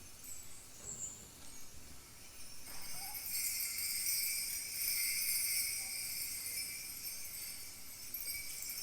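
Kaskawillas, Mapuche bronze bells, shaken in a steady jingling that thickens into a dense shimmer about three seconds in, imitating the sound of falling water.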